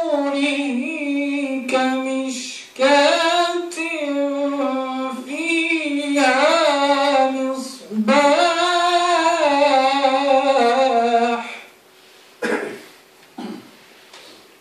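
A man's voice chanting Quran recitation in the Warsh reading, in long, drawn-out melodic phrases with short breaks between them. The chant stops about twelve seconds in, leaving a pause.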